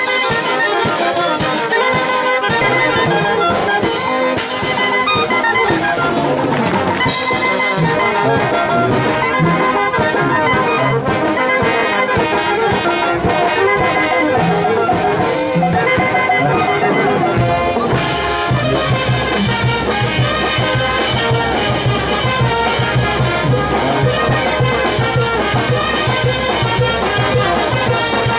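Live band of clarinets and saxophone playing a festive dance tune. About 18 seconds in the music changes and a steady bass beat comes in.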